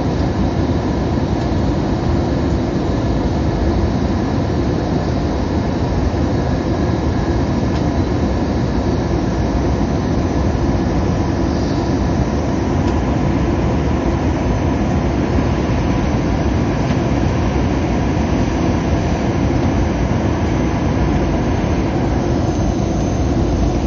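Jet airliner cabin noise during the landing approach, heard inside the cabin: a steady low rumble of the engines and rushing air, with faint steady tones above it.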